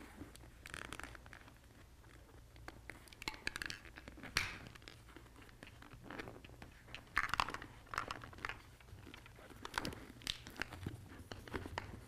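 Irregular scraping, rubbing and crinkling handling noises of hands and a small Allen wrench working a speaker wire into the crease between a motorcycle helmet's shell and its foam liner.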